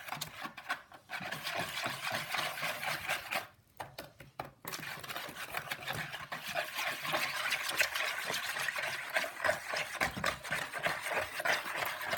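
A utensil stirring borax into water in a container to dissolve it for slime, with quick repeated scraping and clinking against the container. The stirring breaks off briefly about one second in and again for about a second near the four-second mark.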